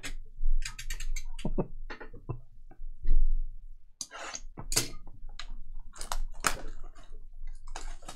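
Handling of a shrink-wrapped cardboard trading-card hobby box: scattered knocks, and a thump about three seconds in, the loudest sound. From about four seconds on comes crackling plastic shrink-wrap being torn off the box.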